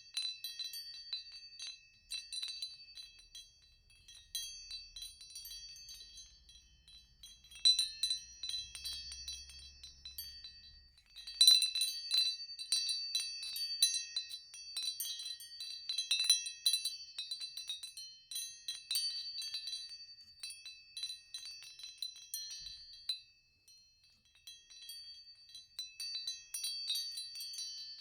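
Wind chimes tinkling, struck irregularly with overlapping high ringing tones. The strikes come in flurries, the busiest and loudest about eleven seconds in, with quieter sparse stretches between.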